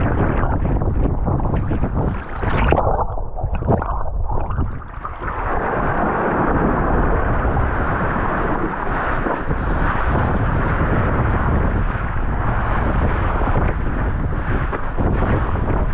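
Wind buffeting a GoPro action camera's microphone while kitesurfing, mixed with the rush of water under the board. It eases briefly a few seconds in, then runs on steadily.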